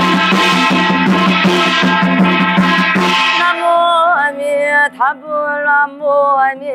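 Korean shamanic sutra chanting: quick, even drum strokes over a steady held tone for the first three and a half seconds or so, then the drumming stops and a woman's chanting voice carries on alone with sliding pitch.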